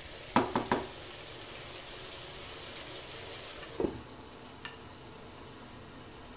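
Shredded cabbage sizzling in a pan, with two knocks of a wooden spatula against the pan early on. About four seconds in, a glass lid is set on the pan with a dull clunk, and the sizzle goes on a little quieter under it.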